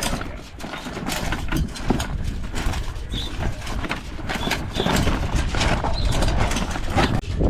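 Wind buffeting the microphone with a steady low rumble, over irregular knocks and clatter, several a second.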